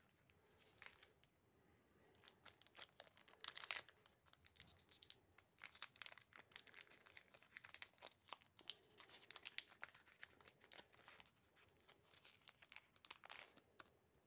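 Foil wrapper of a Pokémon trading card booster pack crinkling and tearing as it is opened by hand: a quiet run of small crackles, with louder crackling about three and a half seconds in and again near the end.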